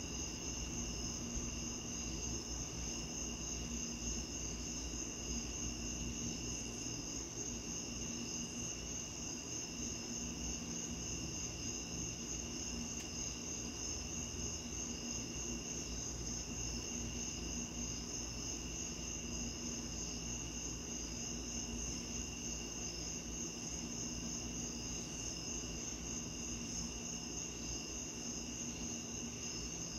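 Night insects trilling steadily at several high pitches, the highest a fast pulsing trill, over a steady rush of rain.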